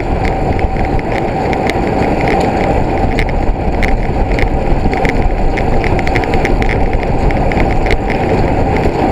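Off-road motorbike running steadily, with dense wind noise buffeting the microphone and light repeated clicks and rattles over it.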